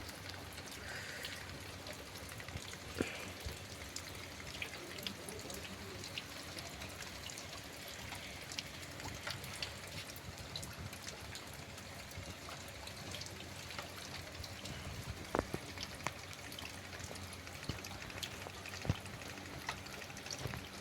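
Heavy rain falling steadily, a constant hiss with many separate drop ticks and splashes throughout.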